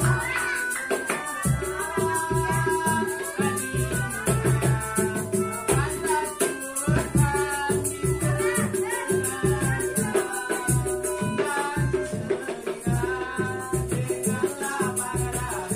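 Street buskers' music: a melodica melody over hand-struck percussion and a rattling shaker, keeping a steady beat.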